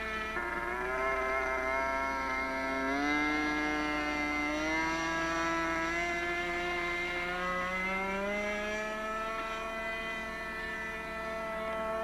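Single-cylinder YS .45 glow engine of a pusher-prop RC scale F-16 running hard in flight, a high, buzzing note that rises in pitch in a few steps as the model passes and the throttle opens.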